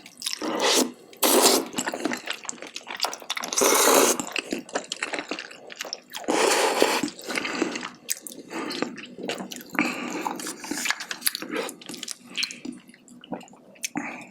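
Close-miked eating of spicy braised chicken with wide glass noodles: several loud, wet slurps with chewing and sticky mouth clicks between them.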